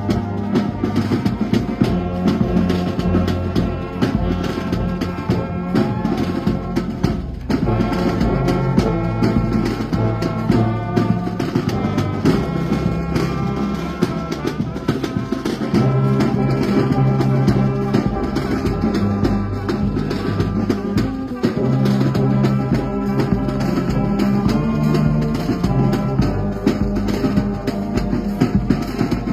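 Brass band playing: brass instruments hold long, sustained chords with a deep bass line, over a steady drum beat.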